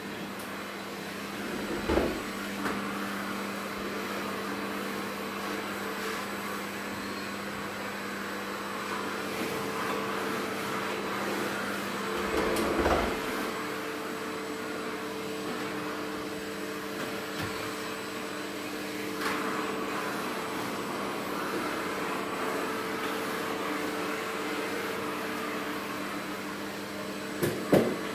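Canister vacuum cleaner running with a steady hum. Three knocks stand out over it: about two seconds in, around the middle, and near the end.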